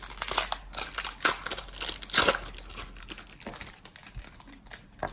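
Plastic trading-card pack wrapper crinkling and rustling as it is handled and pulled open, dense for the first couple of seconds, then softer and sparser.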